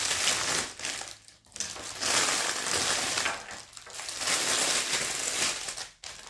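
Packaging crinkling and rustling as it is handled, in three long stretches with short pauses between.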